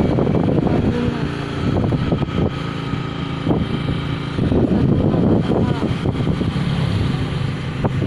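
Motorcycle engines running nearby in street traffic, with people's voices in the background.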